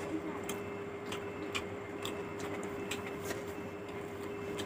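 Fingers kneading sticky rice and fish curry on a plate: a string of sharp, wet clicks, unevenly spaced about half a second apart, over a steady hum.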